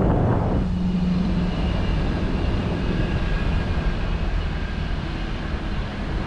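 Wind rushing over the microphone of a camera on a parasail being towed, a steady low rumble with a faint drone in it. A louder gust at the start eases off within the first second.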